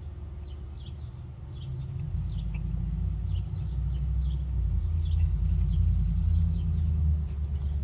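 A low, steady, engine-like rumble that swells about two seconds in and then holds. Small birds chirp over it in short, falling notes repeated throughout.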